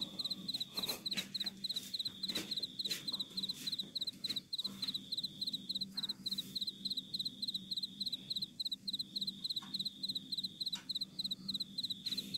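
Cricket chirping steadily at night, short high chirps at about four a second, with scattered clinks and knocks of pots, lids and utensils being handled at the stove.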